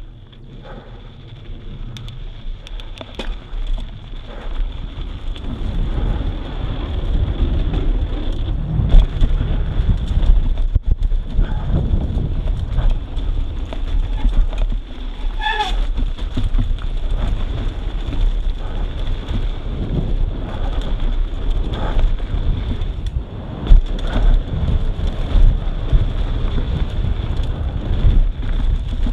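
Mountain bike riding fast down a dirt trail: wind buffeting the microphone and tyres rumbling over dirt and stones, with rattling knocks from the bike over bumps. The noise builds over the first several seconds as the bike picks up speed, and a brief squeal sounds about halfway through.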